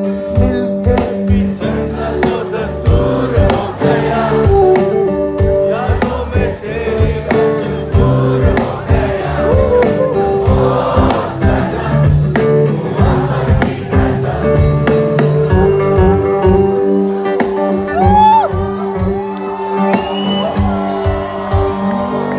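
A live band playing on stage, with a male voice singing over acoustic guitar, bass and a steady drum beat. It is heard from among the audience on a phone microphone.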